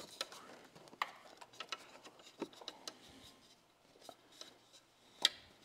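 Faint handling noise of a wire loom being fed behind a motorcycle's frame: scattered light clicks and rubbing, with one sharper click near the end.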